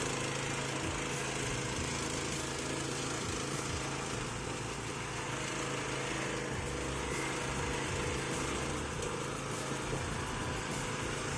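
Small petrol engine of a cassava-stump chopper machine running steadily.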